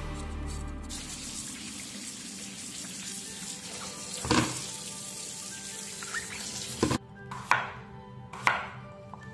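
Kitchen tap water running into a bowl of potatoes as they are rinsed by hand, with one knock partway through. Near the end, a chef's knife cutting potatoes on a wooden cutting board, two chops about a second apart.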